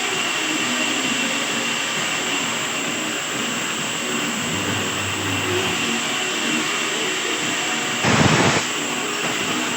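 Woodworking machinery running steadily, a loud whooshing hiss with a faint high whine, and a brief louder surge about eight seconds in.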